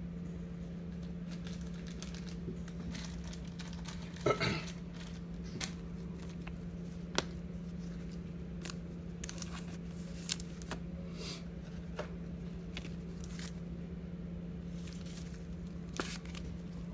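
Plastic crinkling and scattered light clicks as gloved hands slip a trading card into a plastic sleeve and a clear hard plastic case, with a louder rustle about four seconds in. A steady low hum runs underneath.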